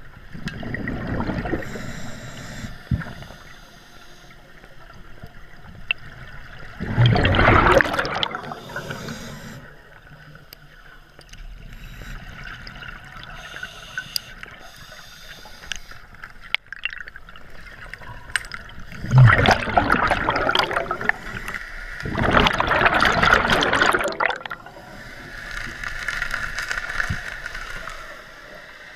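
Scuba regulator breathing underwater: a steady hiss broken by three loud gurgling rushes of exhaled bubbles, about seven seconds in and twice more around twenty seconds in.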